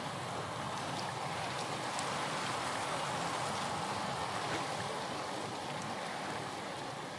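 Small waves on a calm sea making a steady rush of water, with a few faint ticks.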